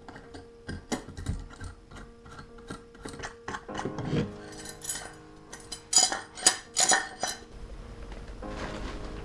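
Metal pipe-hanger strap clinking and scraping as it is handled and fitted against a wooden block, a run of small sharp clicks with three louder metallic clacks about six to seven seconds in. A steadier background hiss takes over near the end.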